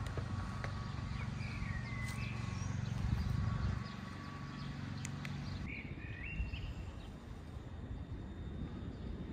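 Outdoor city ambience: a low traffic rumble that eases a little about four seconds in, with short bird chirps around two seconds and six seconds in.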